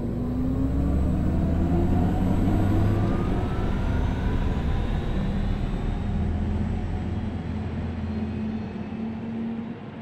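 Audi RS e-tron GT's synthesized electric drive sound as the car accelerates from low speed: a deep steady hum under tones that rise in pitch for the first few seconds, then level off.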